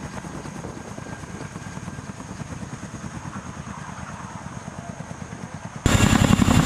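A low, rapidly pulsing mechanical drone, then, near the end, a sudden much louder rapid rotor beat from a CH-47 Chinook's tandem rotors as the helicopter flies past.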